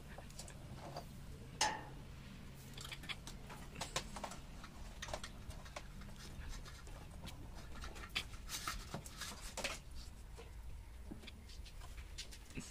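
Scattered, irregular light clicks and knocks of hand tools and parts being handled during electrical wiring work, one sharper knock about a second and a half in, over a faint low hum that fades about halfway through.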